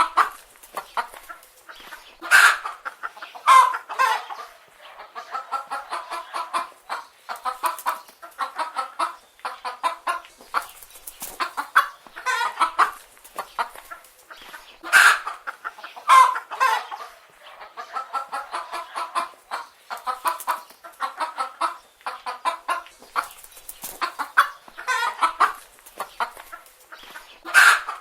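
Several chicken hens clucking continuously, runs of quick clucks broken by louder drawn-out calls every few seconds.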